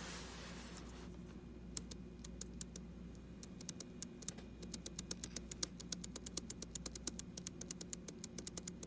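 Keys being pressed on a computer keyboard: scattered clicks begin about two seconds in and quicken to a steady typing pace of several a second. A low steady hum sits underneath.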